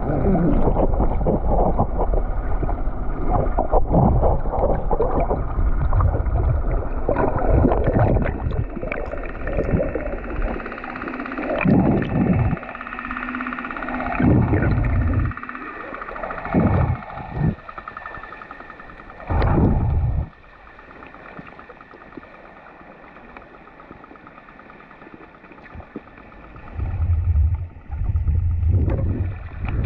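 Sea water sloshing and gurgling around a small fishing boat, with wind gusting on the microphone in uneven surges, heaviest in the first third.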